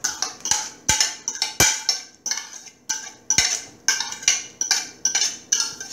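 Mashed banana being scraped out of a bowl into a glass mixing bowl: a run of scrapes and knocks of a utensil against the bowl, about two a second.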